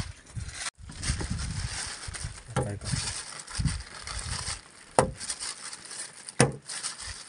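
Plastic bag rustling as small fish are taken out and dropped onto a rusty metal plate, with two sharp slaps in the second half as fish land on the metal.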